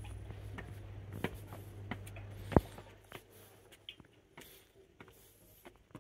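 Footsteps climbing stone steps and crossing stone paving: a string of soft, irregular taps. A low steady hum runs under the first half and stops with one sharp knock about two and a half seconds in.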